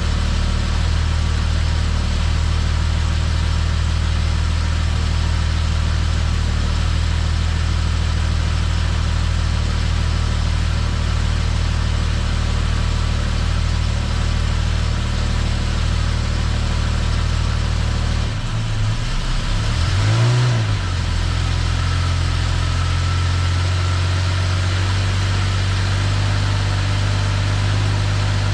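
Jaguar XJS V12 engine idling steadily. About two-thirds of the way through, the note wavers and is briefly blipped up and back down, then settles again into a steady idle.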